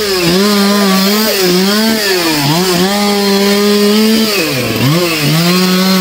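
Chainsaw running at high revs while cutting up a felled tree trunk, its pitch held steady and then dipping sharply and climbing back a few times as the throttle is eased and opened again.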